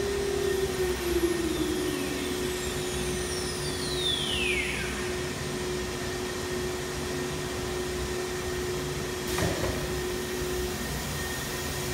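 CIMTECH automatic-tool-change CNC router running with a steady hum and machine noise. A whine falls in pitch a few seconds in, and a short sharp burst comes near the end.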